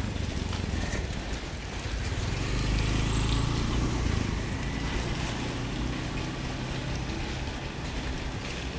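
Light rain falling steadily while a motor vehicle passes: its low engine hum swells about two seconds in, is loudest around three to four seconds, then fades.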